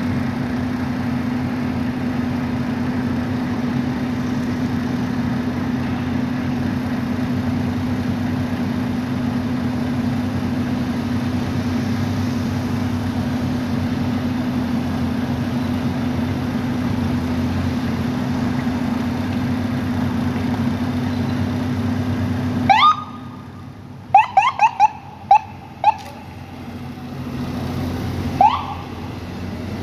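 A steady low hum that stops suddenly about three-quarters of the way through. Then an ambulance siren gives short rising chirps: one, a quick run of about five, and two more near the end.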